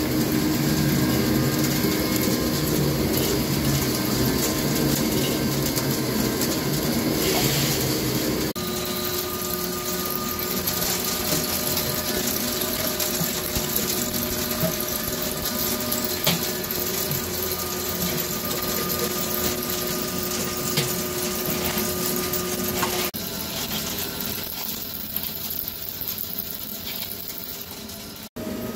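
Large CNC vertical turning lathe turning a forged steel ring: the table and spindle run steadily under the noise of a carbide insert cutting the metal and chips breaking off. The machine tone changes abruptly about eight seconds in and again a few seconds before the end.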